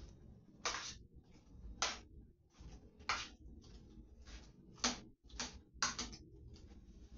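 A series of short, irregular scratchy sounds from hands working food in a pan on the stove, about six louder ones among fainter ones.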